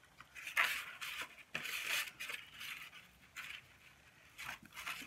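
Paper and packaging rustling, with small items scraping and knocking lightly as they are set into a cardboard box, in several short bursts.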